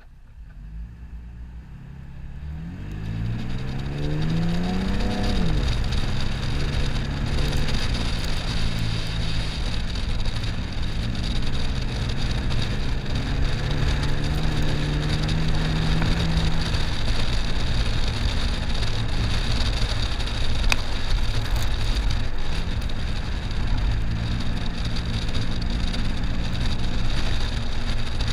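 Toyota FJ Cruiser's 4.0-litre V6 engine driving the truck over soft desert sand: the sound swells about two seconds in, the engine revs up and drops back about five seconds in, then runs on steadily with a few small rises and falls in pitch. A constant rush of wind and tyre noise lies under it, picked up by the outside-mounted camera.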